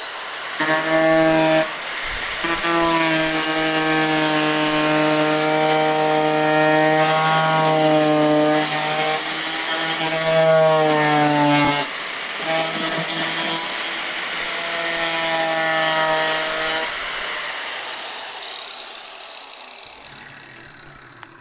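Angle grinder with a toothed blade cutting through a plastic headlamp housing: a steady motor whine with a high cutting hiss, its pitch dipping a little under load. It breaks off briefly about two seconds and twelve seconds in, and near the end it is switched off and winds down, fading away.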